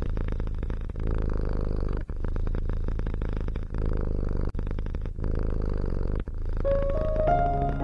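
A domestic cat purring, a steady rumble broken by short pauses every second or two as it breathes. Soft music notes come in near the end.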